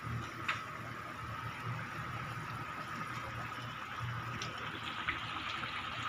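Fish curry gravy simmering in a pan: a steady bubbling hiss, with a few faint clicks.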